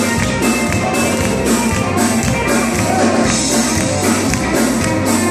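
Live southern gospel band music: keyboard and electric guitar playing an upbeat song with a steady, driving beat.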